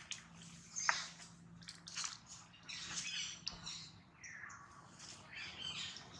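High-pitched squeaks and chirps from young long-tailed macaques, with rustling in dry leaf litter. One call falls in pitch about four seconds in.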